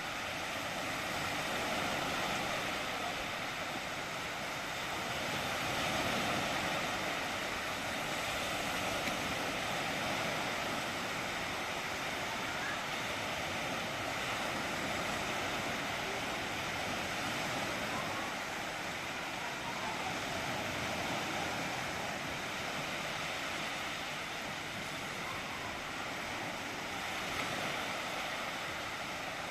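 Sea waves washing onto a sandy beach: a steady rushing surf that swells and eases slowly in loudness.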